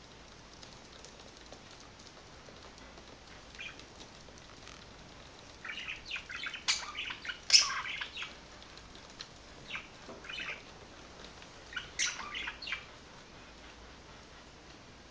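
Pet budgerigars chirping, with wing flutter, in short scattered bursts. The bursts are busiest from about six to eight seconds in and again around twelve seconds, and the loudest comes about seven and a half seconds in.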